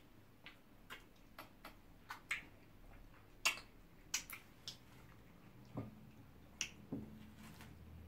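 Soft, irregular wet clicks and smacks of eating by hand: chewing, lip smacks and finger sucking as pounded yam is dipped in okra and ogbono draw soup and eaten. The loudest smack comes about three and a half seconds in, with a couple of duller knocks near the end.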